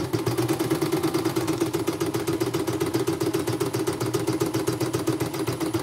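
CNY portable computerised embroidery machine running steadily, its needle stitching a design in quick, even strokes. The machine has been freshly serviced with a new motor and bobbin case, and it is running smoothly.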